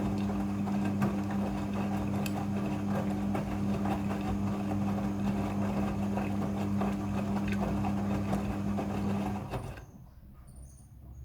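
Midea front-loading washing machine running, with a steady motor hum and a rattling whir from the turning drum. It stops abruptly near the end.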